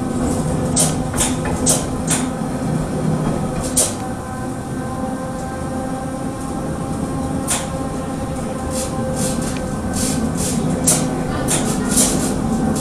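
Renfe Serie 442 metre-gauge electric train running, a steady rumble with a constant motor whine of several tones, broken by short sharp clicks, a few early and more in the last few seconds.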